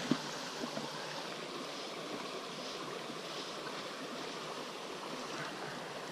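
Steady rushing of a small flowing stream, with a couple of short knocks in the first second.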